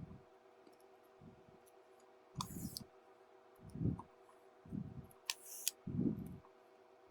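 Hand-sewing a velcro strap onto an AC adapter: irregular soft low bumps and handling rustles about once a second as needle and thread are worked, with a few sharp clicks, two of them close together about five seconds in.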